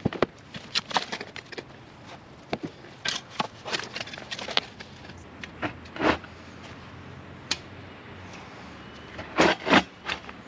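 A 12-inch cardboard Sonotube concrete form being handled and worked down into a dug post hole: irregular scrapes and knocks, with two louder knocks close together near the end.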